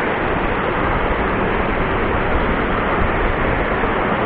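Strong wind blowing on the microphone: a steady rushing noise with a rumbling low end, and no other distinct sound.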